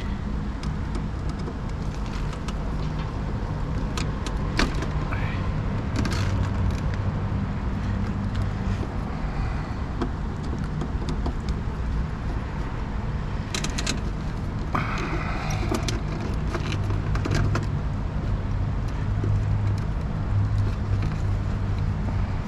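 Steady low mechanical hum of a rooftop package air-conditioning unit running, with scattered clicks, knocks and short metallic squeaks from work on the unit.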